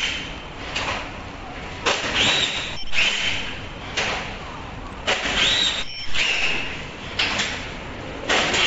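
Plastic film packaging of disposable surgical masks crinkling and rustling as it is handled, in several bursts with brief squeaks of film rubbing on film.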